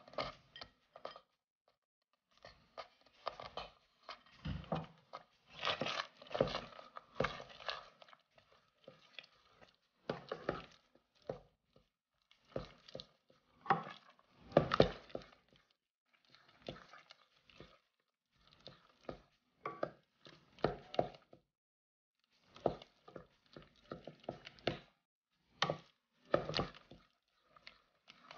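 Wooden spoon stirring thick tomato sauce with melting cheese in a stainless steel pot: irregular scrapes and knocks against the pot, with short pauses between strokes.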